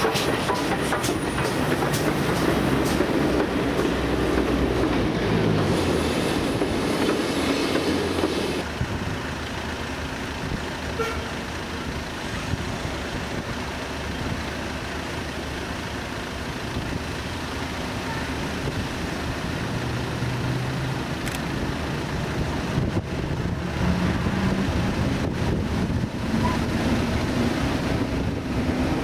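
Railway train running on the line, with rumbling running noise that drops suddenly about nine seconds in to a quieter steady noise.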